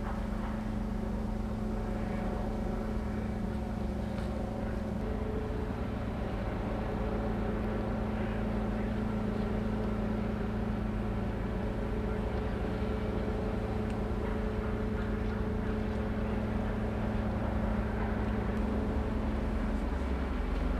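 Steady drone of ship diesel engines from a harbour tug and a tall ship under way. Part of the hum drops away near the end.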